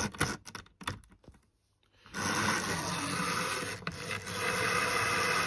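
A few clicks and taps as the model and its crocodile-clip test lead are handled. Then, about two seconds in, the Tri-ang R.52 tank locomotive's small electric motor starts running steadily, driving its wheels on the rolling road.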